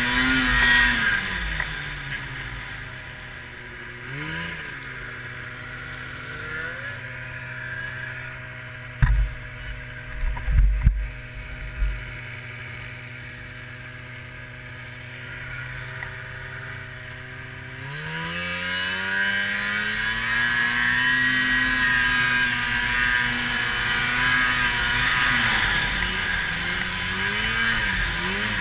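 Arctic Cat 700 snowmobile's two-stroke twin engine, off the throttle to a steady low run for most of the middle with two short blips, then opened up about 18 seconds in, its pitch climbing and holding high under load. A few low thumps come between about nine and twelve seconds in.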